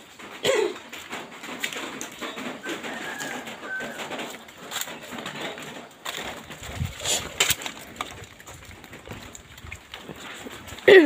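Birds calling: a low falling call about half a second in and a loud falling call at the very end, over a steady background hiss.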